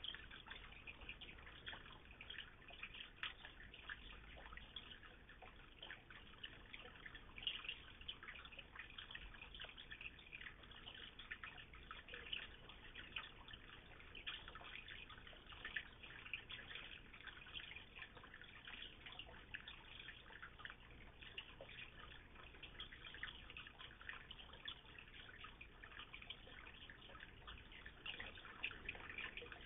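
Faint, steady trickle and patter of water splashing into a koi pond, a dense run of small drips.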